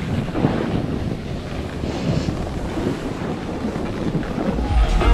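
Wind rushing over the microphone of a camera riding down a snowy ski slope, with a board sliding and scraping on the packed snow. Near the end a deep music beat comes in.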